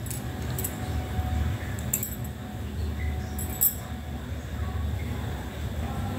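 A metal spatula scraping around a steel kadai, with a handful of sharp clinks against the pan, over a steady low hum. The spatula is gathering a fried mix of cashews, melon seeds and coconut powder.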